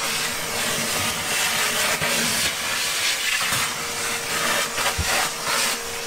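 Vacuum cleaner running steadily: a loud rushing hiss over a steady hum, with a couple of low bumps in the second half.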